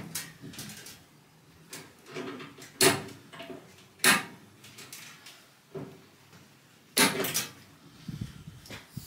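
Scattered knocks and clatter of microwave parts being handled while the oven is dismantled, the sharpest about three and four seconds in and a quick cluster of clacks near seven seconds.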